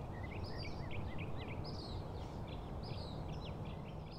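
Small birds chirping: many short, quick chirps and upswept whistles, over a steady low rumble.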